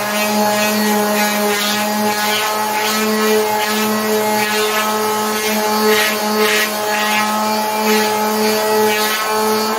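Skil 280-watt variable-speed orbital finishing sander running steadily at top speed, its motor giving an even hum. Sandpaper rasps on a wood board, swelling and fading with each back-and-forth stroke.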